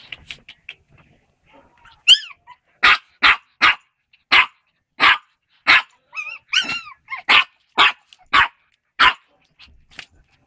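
A puppy barking: starting about two seconds in, a run of about ten short, high barks, roughly two a second, with a couple of yelping cries that rise and fall in pitch among them.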